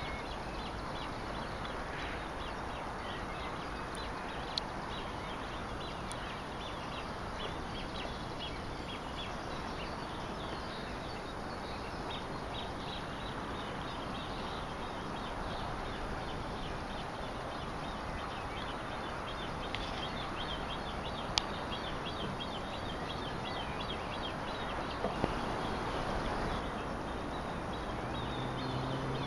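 Outdoor lakeside ambience: a steady hiss with many quick, high bird chirps over it and a few sharp clicks.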